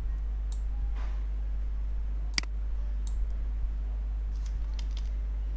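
Computer mouse clicking: one sharp click about two and a half seconds in, with a few fainter clicks around it, several close together near the end. A steady low hum runs underneath.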